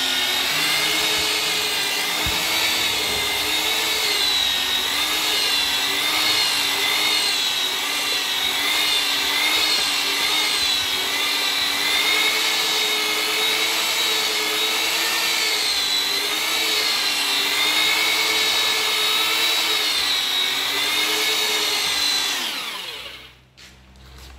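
Electric paddle mixer churning thick wall putty in a plastic bucket, its motor whining steadily with the pitch wavering under the load. Near the end the motor winds down and stops.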